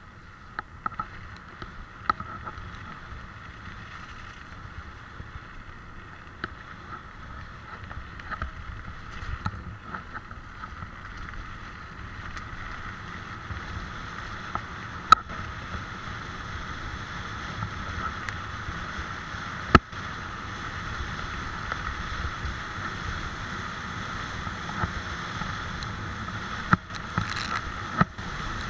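Tyres rolling over a rough gravel and dirt track with wind on the microphone, a steady running noise that grows a little louder towards the end, broken by sharp knocks from bumps and stones.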